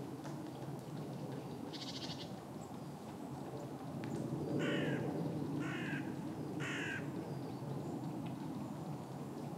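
A crow cawing three harsh times, about a second apart, near the middle, with a higher, thinner call about two seconds in, over steady low background noise.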